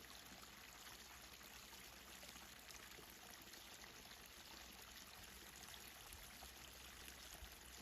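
Faint, steady babbling water from a stream.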